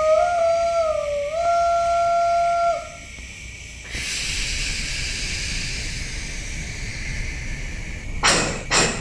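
Model steam locomotive sound effects: one long whistle note with slight bends in pitch, lasting about three seconds. This is followed by a steady steam hiss. Near the end, evenly spaced exhaust chuffs begin.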